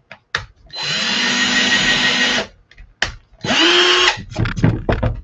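Cordless drill driving screws into a wooden sign board: a steady run of almost two seconds, a pause, then a second run that rises in pitch and breaks up into several short bursts near the end.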